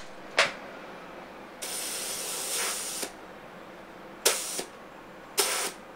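Tippmann TIPX CO2 paintball-style pistol: a short click, then a hiss of gas for about a second and a half, then two sharp shots about a second apart. The CO2 cartridge has not been pierced properly, so the gun is shooting weak, at about 199 fps.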